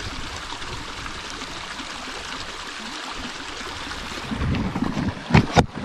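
Steady rushing of running water, such as a snowmelt mountain stream. From about four seconds in, a low rumble of wind on the microphone rises, and a few sharp knocks come near the end.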